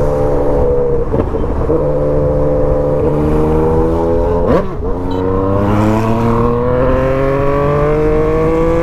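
Yamaha MT-09's inline three-cylinder engine, ECU remapped, pulling in gear with the revs climbing steadily. About four and a half seconds in the pitch jumps up and drops sharply, then climbs again from lower revs.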